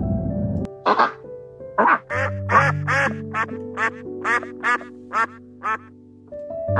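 Duck quacking: about a dozen short quacks in quick succession, over slow piano music.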